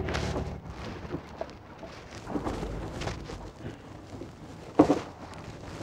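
Wind rumbling on the microphone over the wash of choppy sea, with a brief thump about five seconds in.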